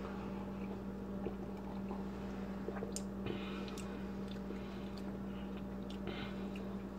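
Faint sipping and swallowing of a carbonated energy drink from a mug, with a few small clicks, over a steady low hum.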